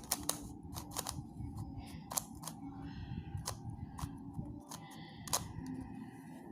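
Megaminx twisty puzzle being turned by hand: its plastic faces give a string of sharp, irregularly spaced clicks and clacks as they snap past each other.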